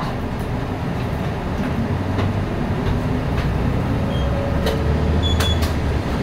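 Diesel city bus heard from on board: the engine runs with a steady low drone, and light rattles and clicks from the cabin come through now and then.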